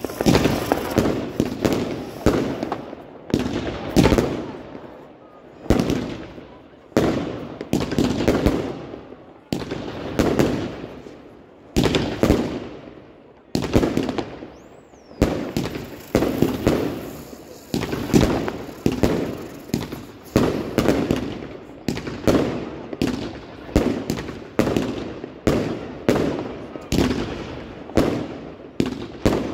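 Fireworks going off in a steady barrage: sharp bangs about one to two a second, each trailing off before the next, as rockets rise with sparkling tails and burst overhead.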